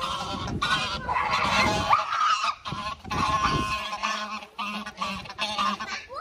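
A flock of domestic geese honking, several birds calling at once with overlapping harsh calls that thin out after about four seconds, as they are chased by children.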